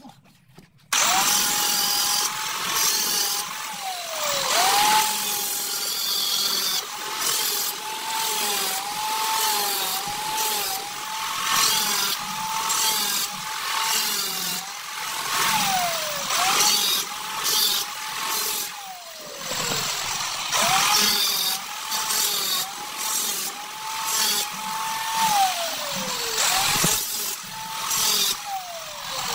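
Power tool cutting ceramic floor tile, starting suddenly about a second in. Its motor whine sags in pitch each time the blade bites into the tile and recovers, with several deep drops under heavy load, over a gritty hiss.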